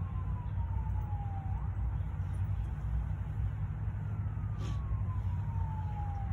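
A distant siren wailing: two slow falling sweeps, each ending in a quick upturn, over a steady low rumble.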